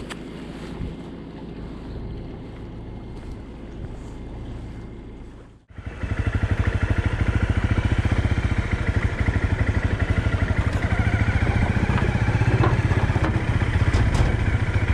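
Motorcycle engine running at low speed as the bike rides onto a car ferry's deck, starting abruptly about six seconds in and then steady and loud with a fast even pulse. Before it, a quieter steady low hum.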